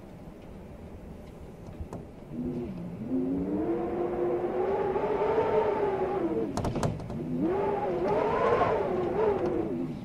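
Blizzard wind howling in two long gusts, a moaning tone that rises and falls in pitch over a low hiss. There are a few sharp clicks between the gusts.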